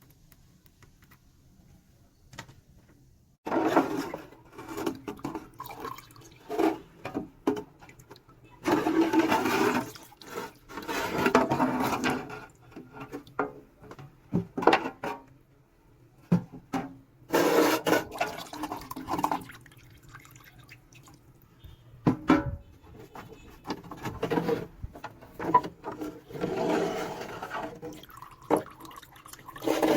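Water splashing and sloshing in irregular bursts, with short knocks and clicks in between.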